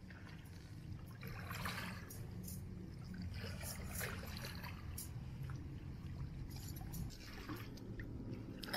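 Faint small splashes and trickles of tide-pool water as a hand reaches in and lifts out a small fish, over a low steady rumble.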